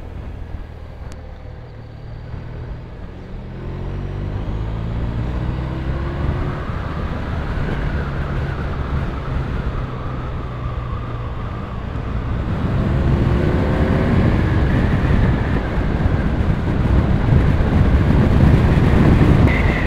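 BMW R1200RT boxer-twin engine under a rider's acceleration: its pitch climbs over the first several seconds, holds steady, then climbs again about two-thirds of the way through. Wind and road rush grow louder as speed builds.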